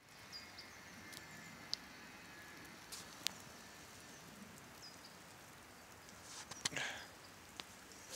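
Quiet outdoor ambience in a snowy garden: a few faint, short high bird chirps, scattered sharp ticks, and a brief rustle with clicks about six and a half seconds in.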